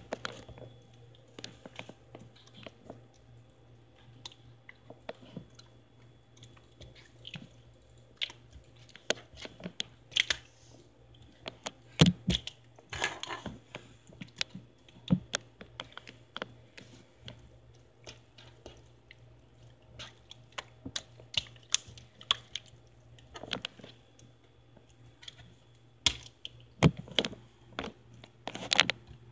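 Blue water slime being squeezed and poked by hand, making irregular wet clicks and small pops, with a few louder snaps, over a faint steady low hum.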